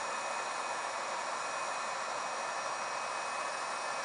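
Paint-stripping hot air gun blowing steadily: an even rush of air with a faint high whine from its fan.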